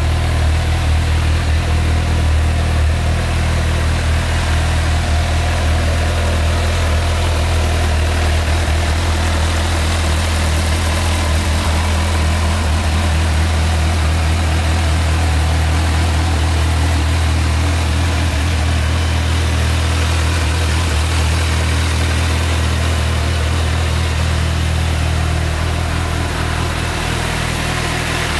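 Honda CBF1000's inline-four engine idling steadily.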